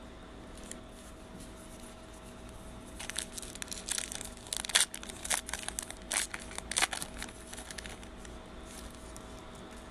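Foil wrapper of a Panini Revolution trading card pack crinkling and tearing open in the hands: a cluster of sharp crackles and rips starting about three seconds in and ending about seven seconds in. A faint steady hum runs underneath.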